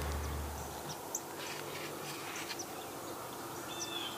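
Quiet open-field ambience with faint, scattered bird chirps and a short high whistled call near the end. A low hum stops about a second in.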